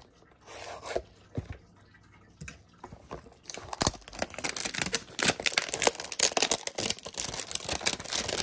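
Plastic wrapping on a cardboard trading-card hanger box being cut and torn off. A short swish comes about half a second in, then dense crinkling and crackling from about three and a half seconds on.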